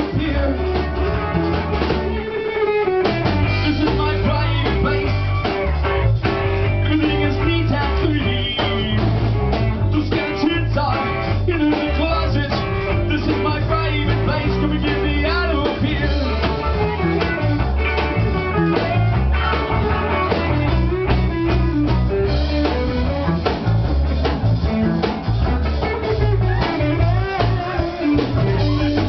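Live rock band playing loudly: a man singing into a microphone over electric guitar and a drum kit.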